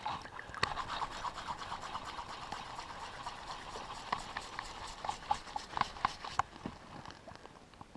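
Water splashing and trickling close by, a dense run of small irregular splashes that stops about six and a half seconds in.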